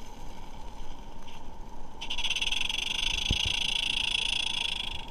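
Regner Vincent live-steam locomotive running with its flywheel spinning, its engine giving rapid, even beats. About two seconds in, a loud steady hiss of escaping steam starts and carries on.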